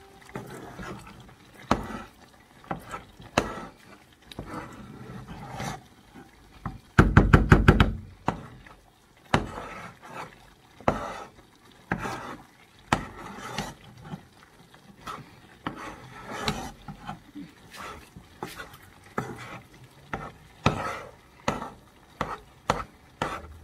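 Metal spoon stirring and turning egusi frying in palm oil in a coated cooking pot, with irregular scrapes and knocks against the pot. About seven seconds in comes a quick run of about ten clattering knocks in a second, the loudest moment.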